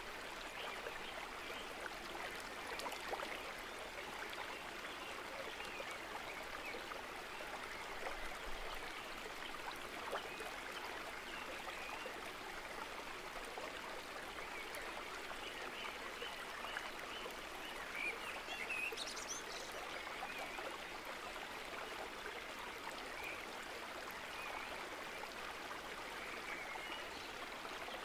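Steady sound of running water from a stream, with faint high chirps now and then and a brief rising sound about two-thirds of the way through.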